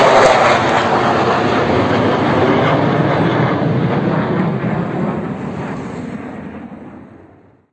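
Jet fighters in formation passing low overhead: a loud, broad jet roar that steadily fades away as they fly off, dying to silence near the end.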